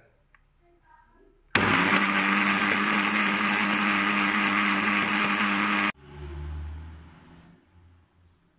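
Electric kitchen blender switched on about one and a half seconds in, running steadily with a hum for about four seconds while puréeing baby rice porridge, then cut off suddenly. A low rumble swells and fades just after it stops.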